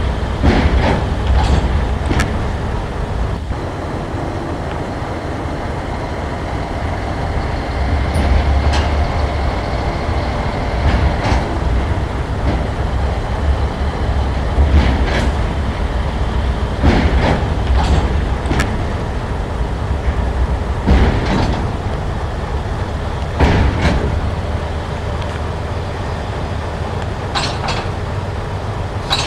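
Model railway diesel locomotive running slowly, a steady low rumble broken by a dozen or so sharp clicks at irregular intervals as its wheels cross rail joints and points.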